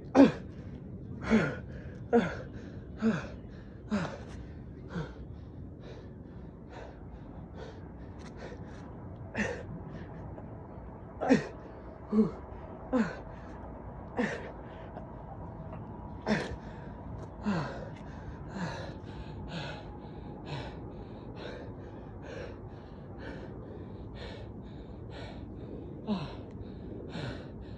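A man gasping and grunting hard with strain, each breath a short burst that drops in pitch. They come about once a second at first, then more irregularly, as he forces out the last push-ups of a long set in exhaustion.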